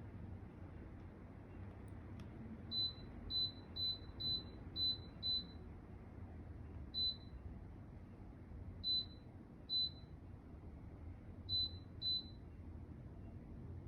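Control-panel beeps from a ZAFRO 10,000 BTU portable air conditioner as its buttons are pressed: eleven short, high, single-pitch beeps, six in quick succession and then five more at uneven gaps, over a faint low hum.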